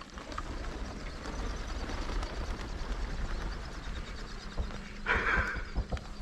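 Mallards flying in close overhead, a steady rush of wingbeats and air, with wind on the microphone, then a short duck quack about five seconds in.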